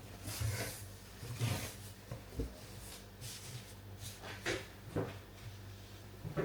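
Kitchen handling sounds: a few soft knocks and several brief rustles as ingredients and utensils are moved about, over a steady low hum.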